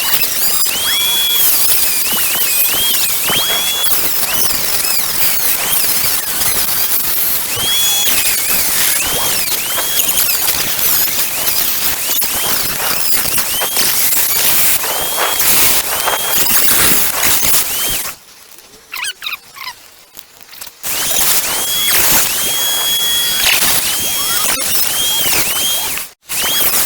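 High-speed rotary tool cutting into a hard plastic switch housing, the bit squealing in rising and falling tones as it bites. It pauses for about three seconds partway through and once more near the end.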